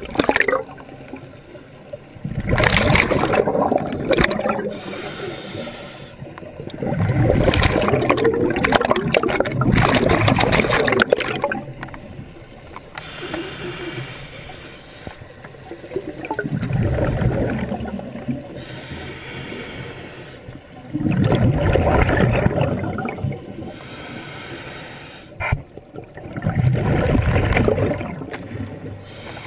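Scuba regulator exhaust heard underwater: a diver breathes out in long gurgling bubble bursts, five in all, each lasting a couple of seconds, with softer hissing between breaths.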